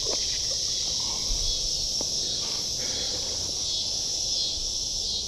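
A steady, high-pitched chorus of insects, with a low rumble underneath.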